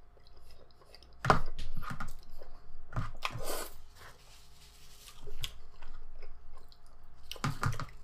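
A person chewing a mouthful of enchilada close to the microphone, with a few sharper, louder mouth sounds about a second in, around three seconds in and near the end.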